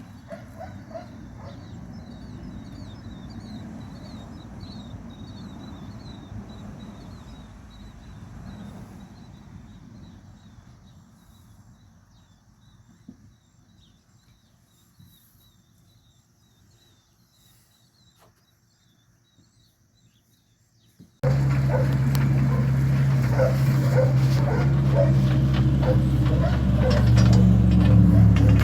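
A faint low rumble with rapid high chirping fades to near silence. Then, after an abrupt cut, a loud engine runs with a steady low hum and pulsing notes above it.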